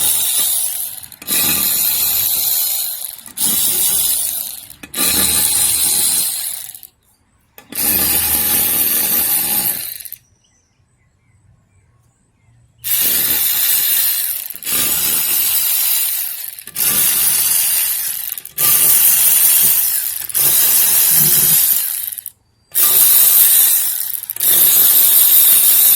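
About a dozen short bursts of loud hissing spray, each a second or two long, with a pause of a few seconds midway.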